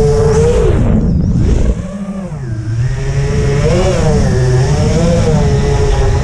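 FPV quadcopter's brushless motors whining. The pitch sags and the sound drops away about a second and a half in, then comes back, its pitch wavering up and down with the throttle.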